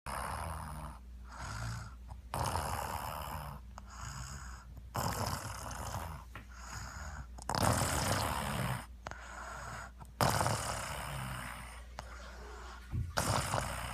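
A man snoring in his sleep: a steady run of rasping breaths in and out, one about every one to two seconds.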